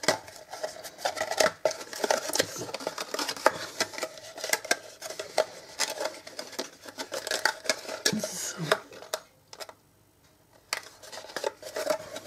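Cardstock being handled, folded and pressed together by hand while a paper box is glued: a run of rustles, crackles and small taps, pausing briefly about nine seconds in before starting again.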